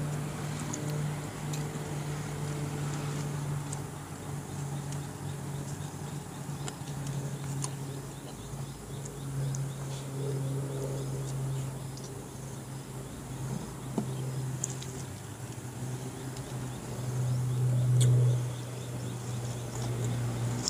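A person eating with the hands: quiet chewing and small mouth and finger clicks, over a steady low drone that wavers and swells briefly near the end.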